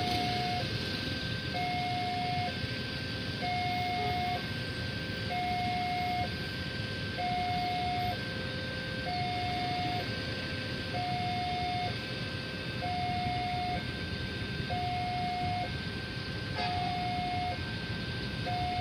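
Electronic level-crossing warning alarm sounding a steady two-tone chime, a higher tone alternating with a lower one about once a second, warning that a train is approaching and the crossing is closed. Under it is a steady wash of noise from vehicles waiting at the crossing.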